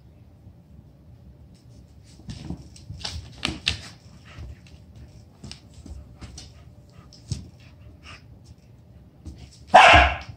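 Dogs play-wrestling on a wooden floor: claws clicking and scrabbling on the boards with scattered scuffles, then one loud bark near the end.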